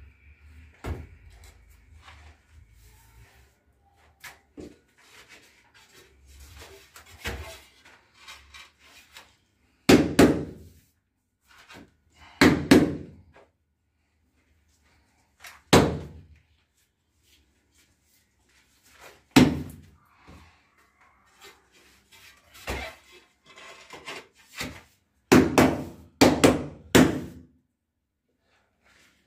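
Dull knocks as ceramic wall tiles are tapped into the adhesive bed to set them: about ten strikes at uneven intervals, with a quick run of three near the end. Faint scraping and handling sounds come between the knocks.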